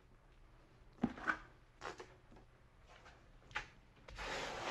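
A notched trowel working thinset mortar: a few short knocks and scrapes as mortar is scooped from the bucket, then a longer gritty scrape about four seconds in as the trowel combs the mortar onto the drywall.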